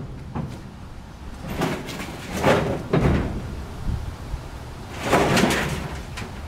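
Long wooden boards being handled on a cart: several sliding scrapes and a few sharp knocks of wood on wood.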